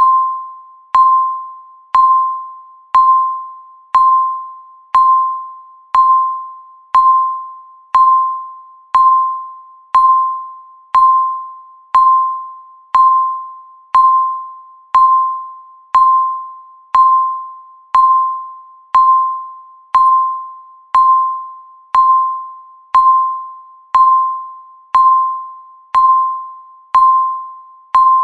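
Electronic countdown-timer beep sounding once a second, each a single pitch that starts sharply and fades away, marking off each second of the countdown.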